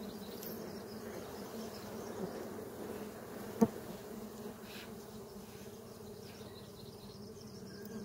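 A swarm of dwarf honeybees buzzing in a steady hum around their freshly cut comb. A single sharp click about three and a half seconds in.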